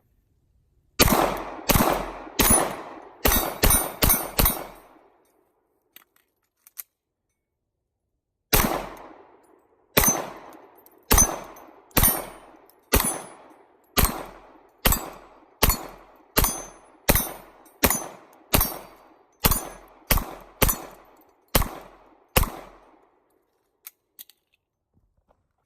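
Pistol fire: a quick string of about seven shots, then after a pause of a few seconds a longer, steady string of roughly fifteen more, each shot ringing out briefly.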